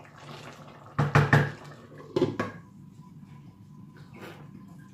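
Pot and utensil clatter: a wooden spoon stirring and knocking against a cooking pot of stew, then its lid being set on, with a few short knocks about a second in and again about two seconds in.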